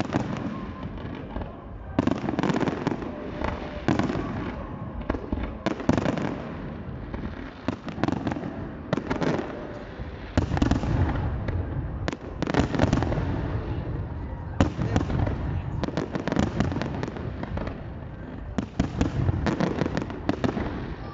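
Fireworks display: aerial shells bursting in dense volleys every few seconds, a continuous run of booms and bangs with crackling between them.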